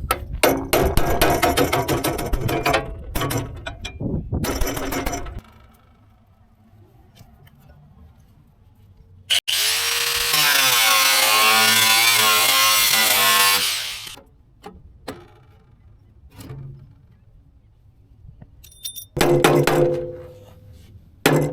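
Power tool working aluminum sheet in bursts: a rattling run of about five seconds at the start, then a louder, steadier run with a wavering pitch from about ten to fourteen seconds in, and a few short knocks near the end.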